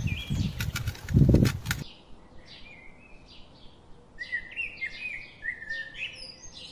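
Clicks and knocks from raw chicken being handled on a steel plate for about the first two seconds, then small birds chirping in many quick, short calls.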